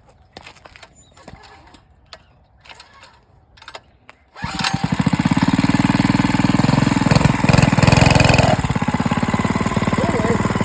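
Small single-cylinder gasoline engine bursting into life about four seconds in, then running steadily with a fast, even firing beat. Before it, a few faint clicks and knocks.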